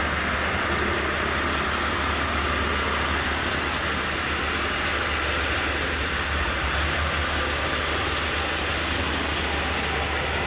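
Steady engine drone of homemade rice combine harvesters working in the field, unchanging in level, with a thin steady high-pitched tone above it.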